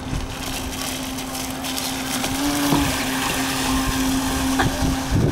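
R/C model boat's Astro Flight 860-5T brushless electric motor running at speed, a steady whine that briefly steps up in pitch about halfway through, over water and wind noise.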